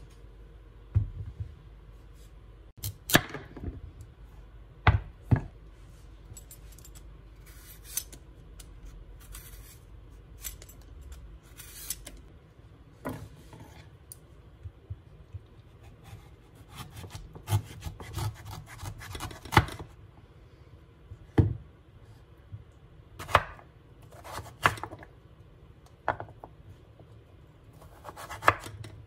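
A kitchen knife cutting raw butternut squash on a wooden cutting board. Irregular sharp knocks of the blade hitting the board come one to a few seconds apart, more often in the second half, with softer scraping between them.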